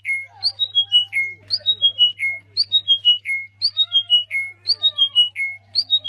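A small crested songbird singing one whistled phrase over and over, about once a second: a short rising note, then three or four notes stepping down in pitch, ending on a lower held note. Fainter, lower squeaky calls and a steady low hum sit beneath it.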